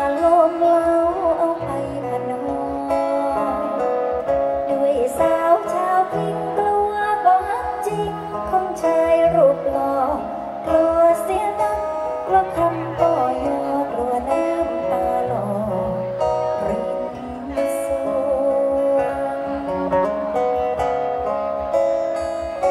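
A woman singing a song live into a microphone, with amplified accompaniment that includes guitar.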